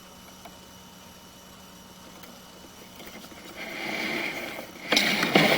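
Sewer inspection camera and push cable being handled at the cleanout: a low steady hum, then from about three and a half seconds a scraping, rattling sound, with sharp clattering knocks near the end.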